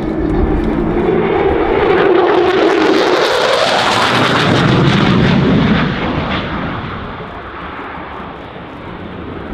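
Lockheed Martin F-35A's single Pratt & Whitney F135 jet engine, loud during a hard turn overhead. About two seconds in the noise swells, with crackle and a whine sweeping up in pitch; after about six seconds it fades.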